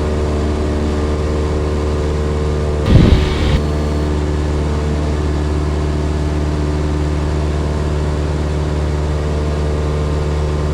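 Cessna 172's piston engine and propeller droning steadily at climb power. A brief loud burst cuts through about three seconds in.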